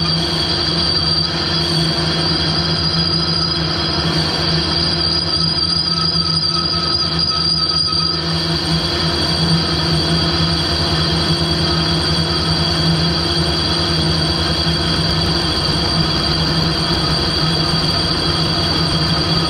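Harrison lathe running with a cutting tool turning and facing a cast steam-locomotive cylinder cover: a steady machining whine with several held high squealing tones over a low hum. The highest hiss grows brighter about eight seconds in.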